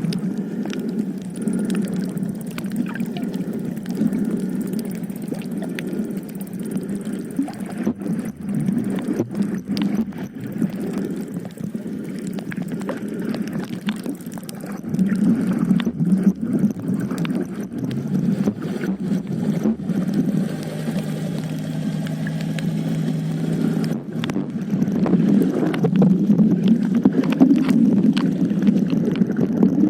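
Boat engine running steadily with a low hum, over a rough, churning wash of water and wind. It grows louder about halfway through and again near the end.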